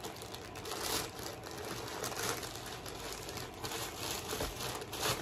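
Plastic packaging crinkling and rustling as it is handled and opened, with several louder crackles scattered through.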